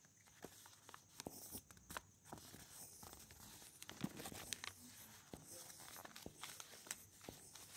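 Fine-tip black pen scratching on paper as small petal strokes are inked, heard faintly as irregular little ticks and scratches with slight paper rustle.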